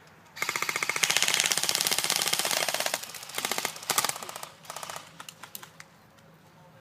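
Airsoft electric gun firing on full auto, a rapid mechanical rattle of shots: one long burst of about two and a half seconds, then a few short bursts and scattered single shots.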